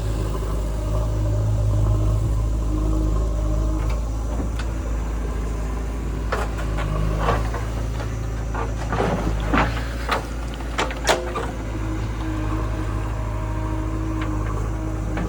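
Heavy diesel engine of earthmoving machinery running steadily, with a cluster of sharp clanks and knocks in the middle.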